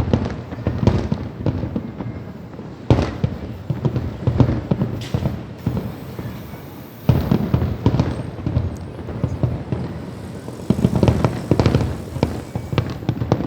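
Fireworks going off in a dense run of bangs and crackles, with loud bursts about 3 and 7 seconds in and a thick cluster of bangs near the end.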